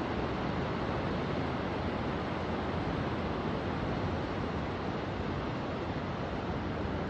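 Steady rushing noise, even and unbroken, with no distinct events standing out.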